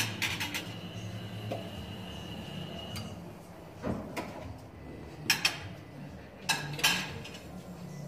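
Plates and cutlery clinking at a breakfast buffet: a few separate sharp clinks with short ringing, the loudest about five and a half and seven seconds in, over a low steady hum.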